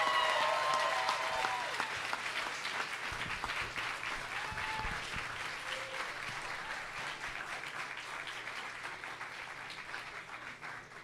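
Club audience applauding, a dense patter of many hands clapping that is loudest at the start and slowly dies away.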